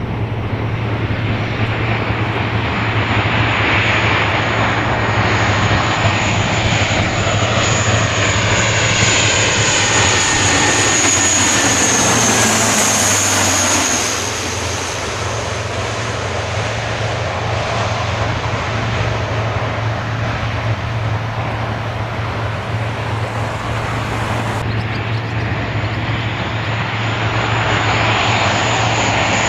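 Boeing C-17A Globemaster III's four turbofan jet engines passing by on its landing approach: a loud steady rush with a high whine, the pitch sweeping down as the aircraft passes about twelve seconds in, then easing a little.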